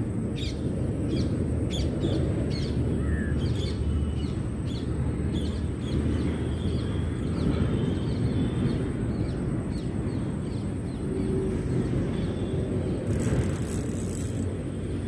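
Outdoor ambience: a steady low rumble with scattered short bird chirps, and a brief high hiss about thirteen seconds in.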